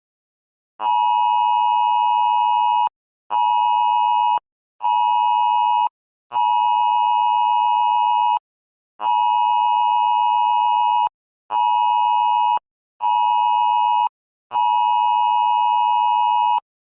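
Emergency alert two-tone attention signal sounding in eight loud steady beeps, about two seconds and one second long in a long-short-short-long cadence, the pattern of a Wireless Emergency Alert on a phone.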